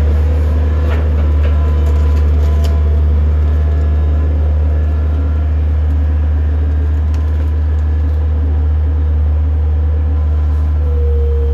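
Engine of a farm machine running steadily at a constant speed, with a deep, even hum.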